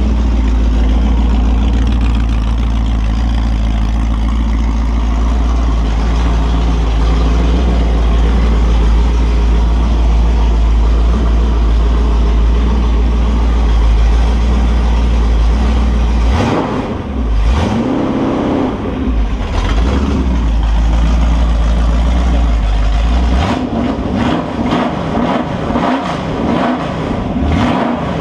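Holden 355 stroker V8 running on an engine stand through open headers, holding a steady speed at first. From about halfway through, the throttle is worked by hand at the carburettor and the engine note rises and falls irregularly.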